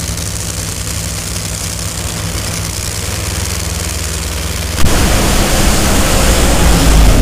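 Two supercharged nitromethane V8 Funny Car engines running loud and steady on the starting line, then launching at full throttle about five seconds in, the sound jumping to a much louder, rougher roar that keeps building.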